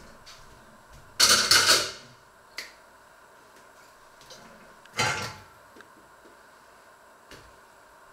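Metal pots, pans and lids clattering as they are moved about on a stovetop: a loud jangling clatter just over a second in, a short knock, then a second clatter about five seconds in.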